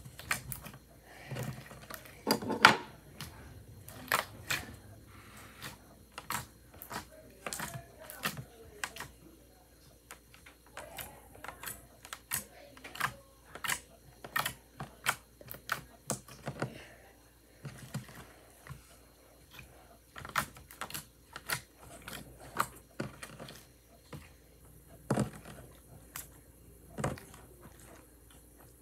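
Slime being squeezed and kneaded in the hands, making a run of sharp, irregular clicks and pops, several a second.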